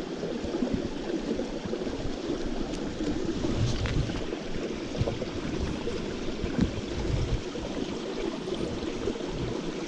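Small creek running: a steady rush of flowing water, with a few soft low bumps about four and seven seconds in.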